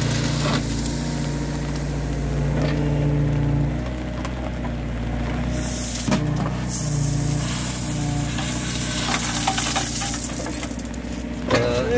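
Diesel engine running steadily while an excavator's clamshell grab drops crushed stone into a steel truck bed. The stone comes down in a rushing, rattling pour about six seconds in that lasts a few seconds.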